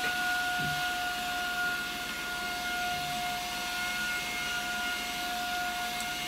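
Vacuum cleaner running steadily, a constant high whine over rushing air.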